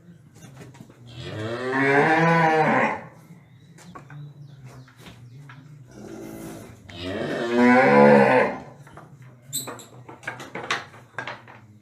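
A cow mooing twice, each call about two seconds long and bending in pitch. A run of short clicks and knocks follows near the end.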